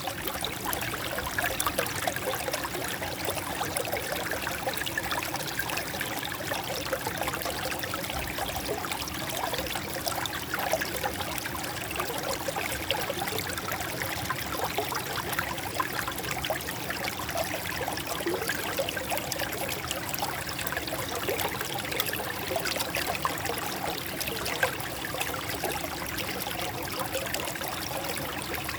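Water trickling and splashing through gaps between rocks: a steady babble of many small, irregular splashes.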